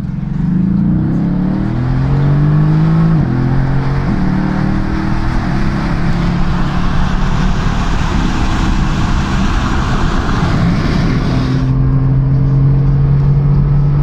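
Mercedes-AMG GT under full-throttle acceleration from low speed, heard from inside the cabin. The engine note climbs in pitch and drops back at upshifts about three and four seconds in, then wind and tyre noise builds. Near the end the noise falls away suddenly as the engine settles to a steady drone.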